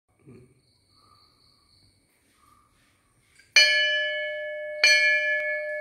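Hanging metal temple bell rung by pulling its chain: the clapper strikes it twice, a little over a second apart, about midway in, each strike leaving a long ringing tone with several steady overtones that slowly fades.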